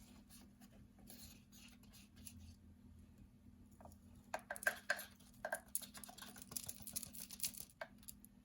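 Ground cumin powder being scraped out of a coffee and spice grinder's bowl: irregular light scratching and tapping, busiest in the second half.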